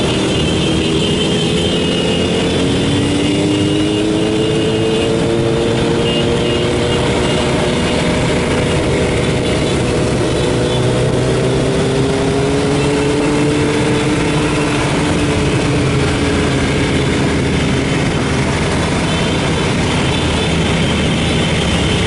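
Motorcycle engines running steadily on a group ride, their pitch slowly rising and falling over a constant rushing noise.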